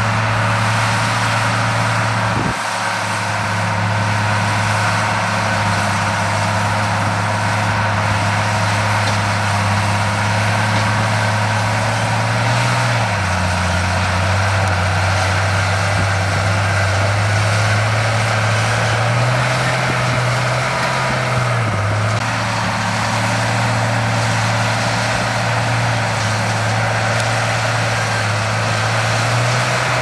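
Heavy diesel engine of road-construction machinery running steadily, with a low drone. Its pitch drops about halfway through, rises for a few seconds and falls again.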